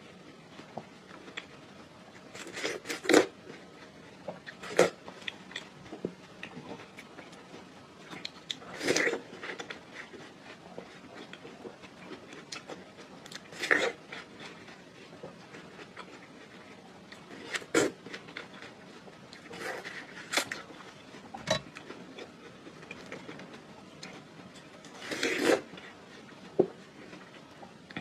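Watermelon being bitten and chewed: short crunchy, wet bites every few seconds, with quiet between them.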